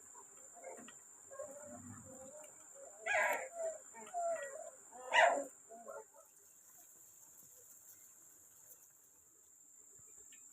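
Animal calling: several short cries over the first six seconds, the two loudest about three and five seconds in.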